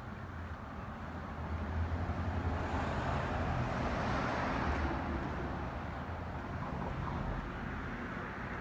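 A car driving past: engine and tyre noise swell up about two seconds in, hold for a few seconds, then slowly fade away.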